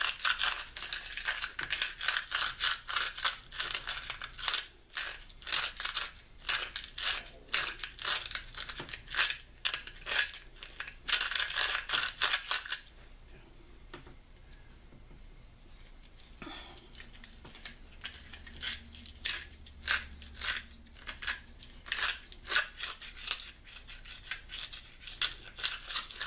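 Turkey wing bone being hand-sanded with sandpaper: quick rasping strokes that stop for a few seconds about halfway, then resume more softly.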